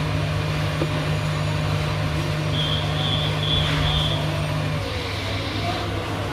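Steady hum and hiss of background noise. A low drone in it stops about five seconds in, and three short high beeps sound near the middle.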